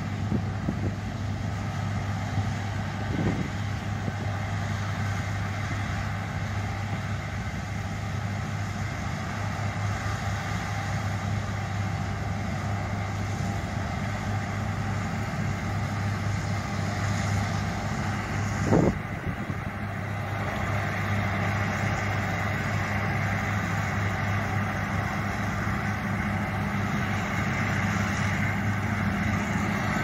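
John Deere combine harvester working in wheat: a steady engine and threshing drone with a low hum, getting a little louder as it comes closer. A single short knock sounds about two-thirds of the way through.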